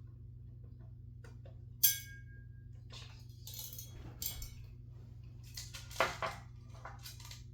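Screwdriver and screws clinking and scraping against a ceiling fan's metal parts: one sharp, ringing metal clink about two seconds in, then several softer scrapes and taps, under a low steady hum.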